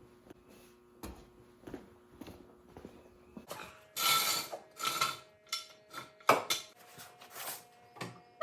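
Irregular metallic clanking and clattering, some strokes leaving a short ring, starting faint and getting much louder about three and a half seconds in, over a steady low hum.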